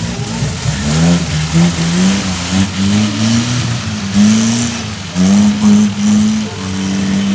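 Off-road 4x4's engine revving hard, its pitch rising and falling again and again, dipping briefly about five seconds in, then held at a steady high pitch near the end.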